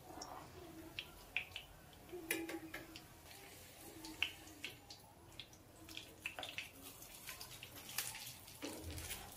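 Egg-filled paratha frying quietly in ghee on a low flame: scattered faint crackles and pops, with light clicks of a metal spatula against the pan as the paratha is turned and pressed.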